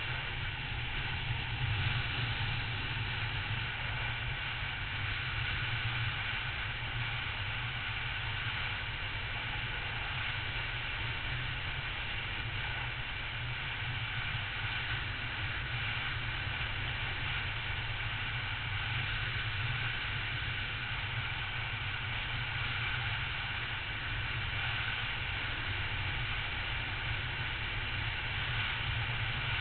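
Triumph Tiger motorcycle cruising at a steady speed, its engine running with an even low drone under steady wind and road noise on the bike-mounted microphone.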